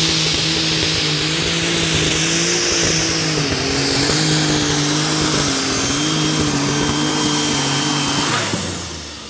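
Turbocharged Super Stock pulling tractor's engine at full power during a pull, with a steady high whine over the engine note, which sags a little in pitch as the pull goes on. About eight and a half seconds in the engine comes off the throttle and the sound falls away quickly.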